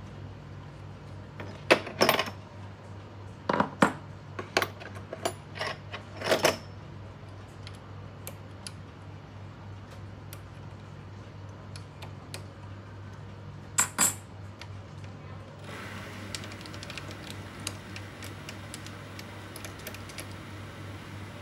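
Sharp metal clinks and knocks of a tool being worked at the four-jaw chuck of a small metal lathe: a cluster in the first several seconds and two more about 14 seconds in. About 16 seconds in the lathe starts, and its spindle runs with a steady whir and light ticking over a low hum.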